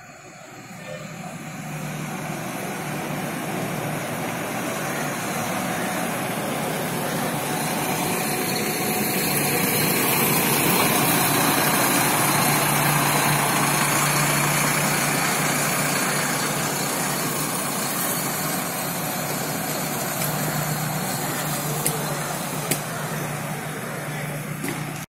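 Volvo B11R coach's rear-mounted diesel engine pulling away. A steady low engine hum grows louder as the rear of the bus passes close, is loudest about halfway through, then eases a little as the bus drives off.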